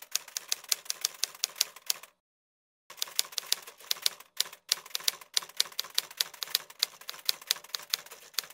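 Typewriter typing sound effect: a rapid run of key clacks, about seven a second, pausing for just under a second about two seconds in.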